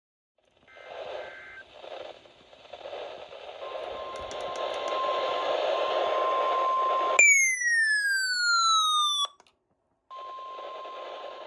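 Emergency alert tones on a weather radio received through static: short paired data-burst tones of the alert header, then the steady single-pitch warning alarm tone. About seven seconds in, a loud falling tone sweeps down for two seconds and cuts off, and after a short break the static and the alarm tone return.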